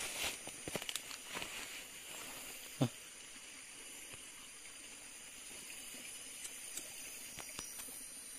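A few light clicks and rustles, and one sharp knock about three seconds in, over quiet rainforest ambience. The ambience holds a steady high-pitched insect drone.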